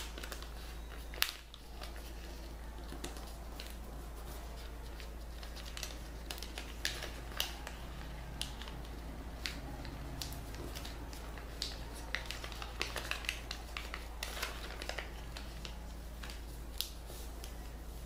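Origami paper being folded and creased by hand: scattered light crinkles, clicks and fingertip taps on the paper, over a steady low hum.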